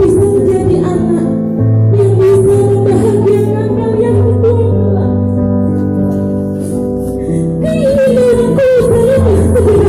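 A song with a sung melody over sustained accompaniment chords, the low notes held and changing every second or two.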